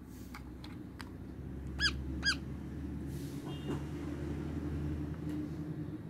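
Green parakeet giving two short chirps about half a second apart, each rising and falling in pitch, after a few light clicks of its beak on a plastic toy.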